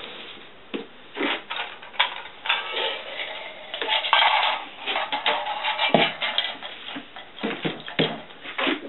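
Aluminium foil crinkling and crackling as a foil-lined cake is worked out of a stainless steel pot, with a few sharp knocks of the pot and foil handling.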